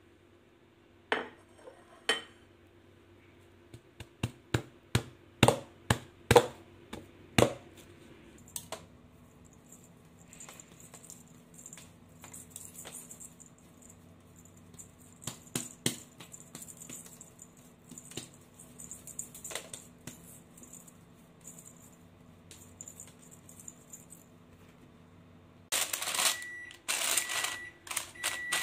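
Baking parchment paper crinkling and rustling as it is handled and dough is pressed into it, after a run of about a dozen sharp knocks in the first few seconds. Near the end the crinkling gets loud, and a short electronic beep repeats about once a second.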